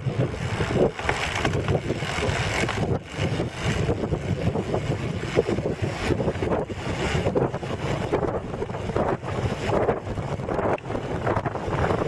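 Wind buffeting a camera's microphone on a moving vehicle: a rough, fluctuating rumble with no clear engine note.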